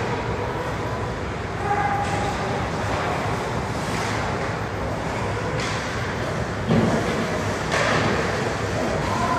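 Ice hockey game in play: steady arena noise with several short scrapes and clacks from skates, sticks and puck, the loudest about seven seconds in.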